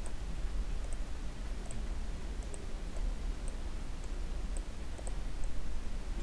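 Sparse, faint clicks of a computer mouse, roughly one a second, over a steady low hum.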